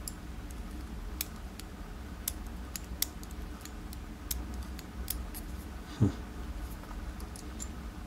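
Steel tweezers clicking against the brass plug and small brass lock pins as the pins are worked out of a gutted padlock: a scatter of light, irregular metallic ticks, with one duller bump about six seconds in.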